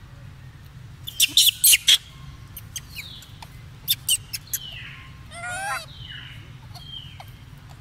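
Young macaques squealing: a quick run of short, sharp squeaks about a second in, another run a little before the middle, then a wavering call and a few short falling cries, over a steady low rumble.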